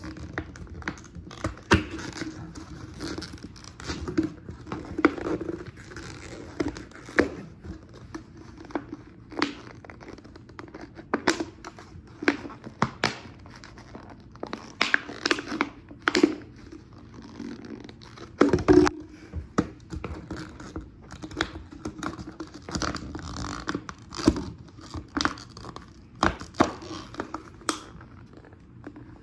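Thin plastic bottle crinkling and cracking as scissor points are jabbed through it to poke holes, in irregular sharp cracks with one loudest crack about two-thirds of the way in.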